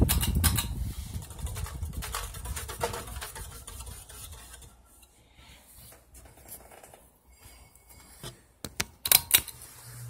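Ceiling fan running, with the draft from its spinning blades buffeting the microphone in a low rumble that fades away over the first few seconds. A few sharp clicks near the end.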